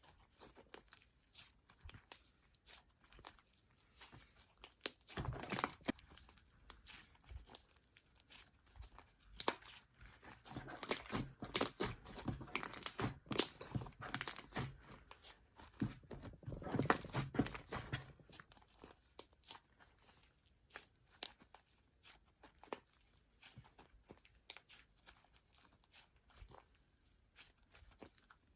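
Slime with shaving foam mixed in being stretched and squeezed by hand, with sticky crackles, pops and tearing sounds as the foamy slime keeps ripping apart. The crackling comes in busier, louder bunches in the middle and thins out near the end.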